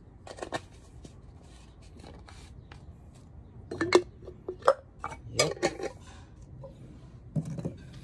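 A series of small knocks, clicks and clinks from hard containers being handled, with a few sharper clinks about four to six seconds in.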